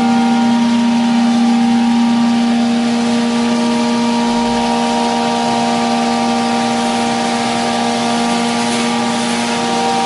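CNC router's 7.5 HP spindle cutting 18 mm melamine-faced MDF in a single pass, a steady whine of several held tones over an even cutting hiss.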